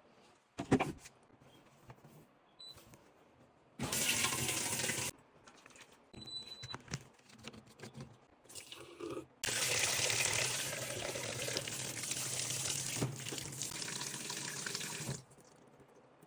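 Liquid pouring into a Speed Queen washing machine in two spells: a short pour about four seconds in, then a longer steady stream of about six seconds, with a few small clicks in between.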